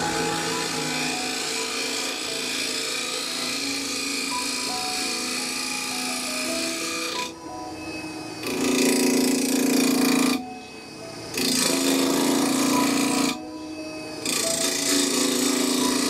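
Turning tool cutting across the face of an oak blank spinning on a wood lathe: a steady scraping of wood, broken three times for about a second, about 7, 10 and 13 seconds in, as the tool comes off the wood.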